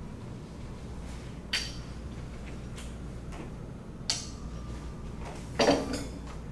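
A rolling pin being handled on a wooden worktable: three short knocks and clinks as it is picked up and set down, the loudest and longest near the end, over a steady low room hum.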